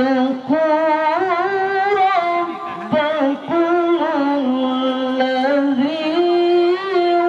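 A man sings solo into a microphone without instruments, in long held notes with ornamented melismatic turns and short pauses for breath.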